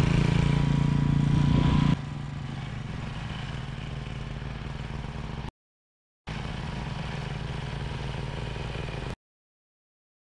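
Troy-Bilt Horse rear-tine tiller's engine running steadily as its sharpened tines churn through dense clay. The sound drops to a lower level about two seconds in, breaks off for a moment past the middle, and cuts off abruptly near the end.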